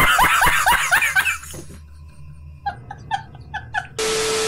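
A man's loud, hearty laugh in quick rhythmic pulses that fades out after about a second and a half. Near the end comes a sudden burst of TV static hiss with a steady test tone under it.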